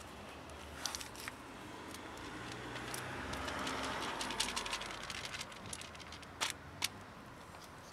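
A vehicle passing by on the street, its noise swelling to a peak a little before the middle and fading away, with scattered sharp clicks throughout.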